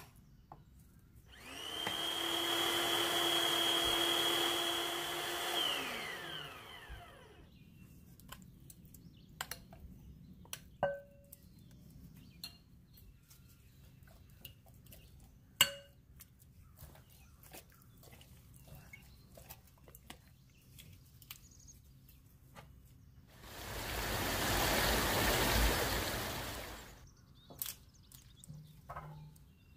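Electric kitchen blender running with a steady motor whine for about four seconds, then winding down in pitch as it is switched off. Light clicks and knocks follow, and a second rushing noise of about three seconds, without the whine, comes near the end.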